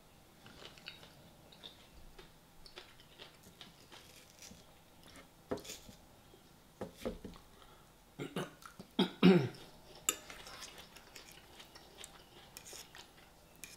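A man eating fisherman's pie with a fork: chewing and mouth sounds, with scattered clicks of the fork against the plate. The loudest moment is a short voiced sound from the throat about nine seconds in.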